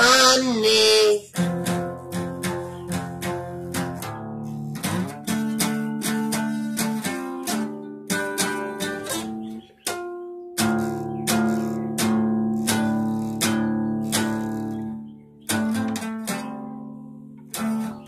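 A man's sung phrase that ends about a second in, then a guitar played alone: chords picked and strummed, each ringing out, with a couple of short breaks between phrases.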